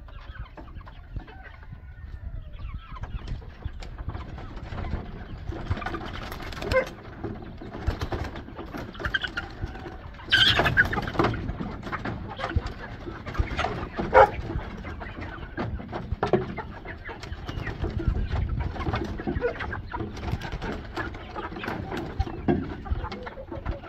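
A flock of young chickens clucking and calling in a wooden coop, with wings flapping and feet scuffling. Two louder sudden sounds stand out, about ten and fourteen seconds in.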